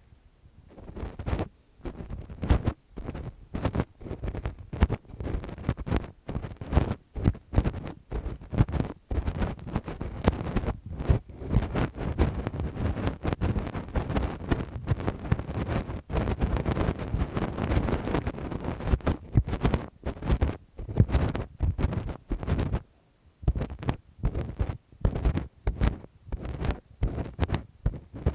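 Lace-gloved fingers rubbing and scratching directly on the microphone in quick, irregular strokes, with a heavy rumble from the contact, as in ear-cleaning ASMR. The strokes run almost without a break, thickest in the middle, with a short pause about 23 seconds in.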